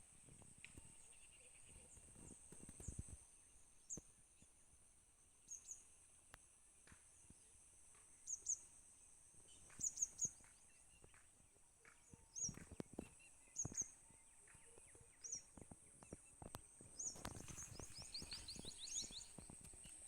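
Faint rural ambience: short high bird chirps scattered over a steady high-pitched drone, with a few soft knocks, and a quick run of chirps near the end.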